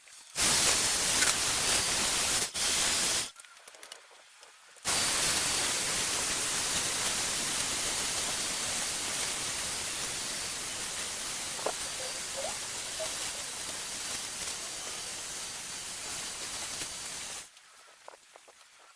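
Strong wind rushing through foliage, a loud even hiss: a short stretch at the start, then a longer one that slowly fades before stopping abruptly.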